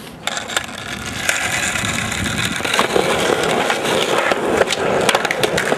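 Skateboard wheels rolling over rough asphalt: a steady grinding rumble with scattered clicks, getting louder about halfway through.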